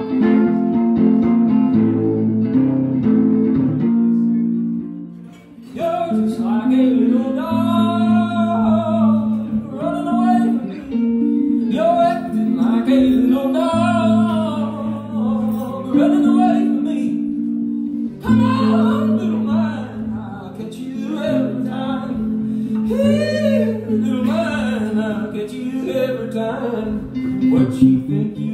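Live music: a man singing over a strummed guitar. The guitar plays alone at first, and the voice comes in about six seconds in.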